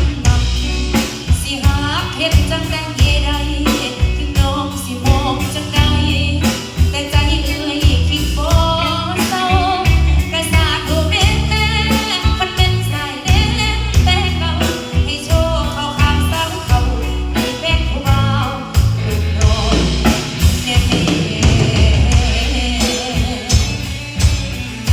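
A live band playing a song: drum kit and bass keeping a steady beat under singing.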